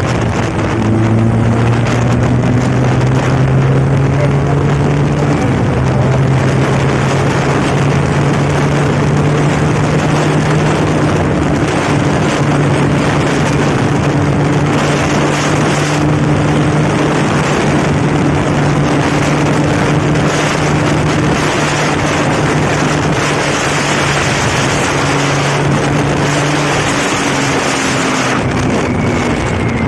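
Benelli TNT 300's parallel-twin engine, fitted with an aftermarket exhaust, running at fairly steady revs while the motorcycle is ridden, with wind rushing over the microphone.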